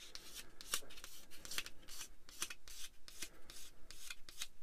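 Small plastic model-kit part being sanded by hand in short, quick scratchy strokes, about three to four a second, smoothing the edge of the part.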